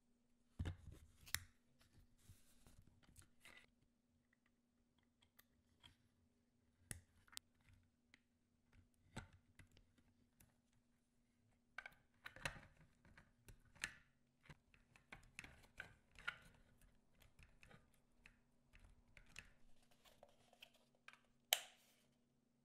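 Hands handling a LiPo battery's plugs and wires and 3D-printed plastic body parts: scattered plastic clicks and wire rustles, irregular and faint, with one sharp click near the end. A faint steady hum runs underneath.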